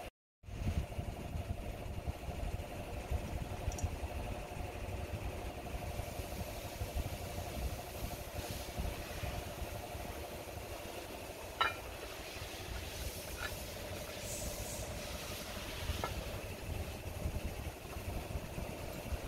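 An engine or motor running steadily in the background with a pulsing hum, and a few light metallic clinks from oil cooler parts being handled in the second half.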